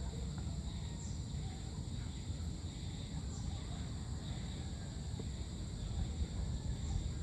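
Evening outdoor ambience: a steady high-pitched insect chorus over a low rumble, with a few short high chirps every two or three seconds.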